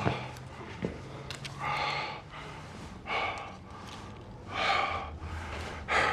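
A man breathing hard, winded after a fistfight: about four loud breaths, one every second and a half or so.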